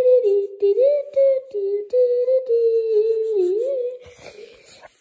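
A person humming a wordless tune in a run of short held notes with small slides in pitch, stopping about four seconds in.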